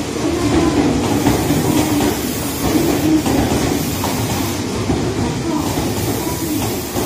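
Electric commuter train running past a station platform: steady wheel-on-rail and motor noise.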